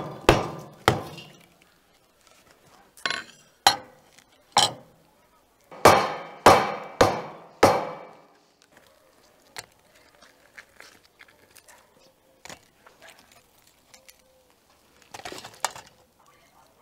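The butt of a wooden axe handle striking a hard salt crust baked over a whole salmon in a metal tray: about nine sharp knocks in three bunches as the crust cracks. These are followed by faint clicks and scrapes as crust chunks are broken off, with a few louder knocks near the end.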